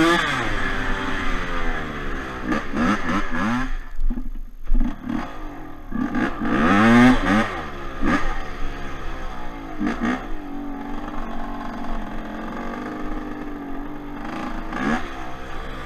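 Yamaha Blaster's single-cylinder two-stroke engine revving up and down as the quad is ridden over dirt. The revs drop away briefly about four seconds in, climb hard again around six to seven seconds, and hold steadier near the end.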